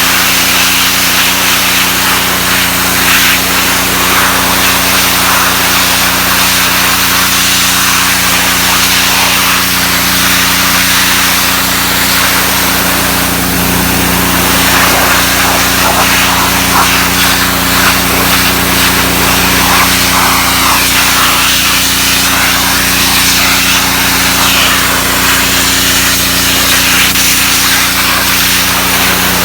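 Gas pressure washer's Honda GCV160 engine running steadily, with the loud hiss of the 3000 psi water jet blasting grime off a dog crate.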